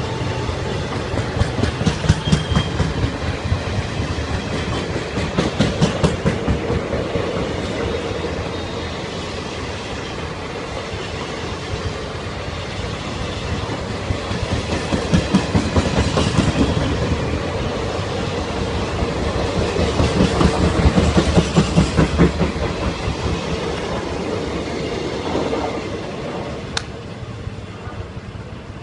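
Passenger express coaches rolling slowly past, with a steady rumble and the wheels clattering over the rail joints in clusters of clicks every few seconds.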